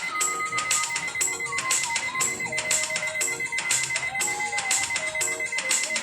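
Background music with a steady percussive beat and a gliding synth-like melody.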